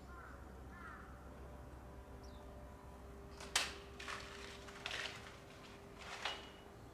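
Crows cawing: four short, harsh calls in the second half, the first the loudest, after a couple of faint small-bird chirps near the start.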